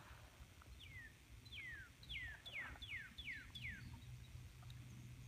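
A songbird singing a run of about seven clear whistled notes, each sliding downward in pitch, coming faster toward the end.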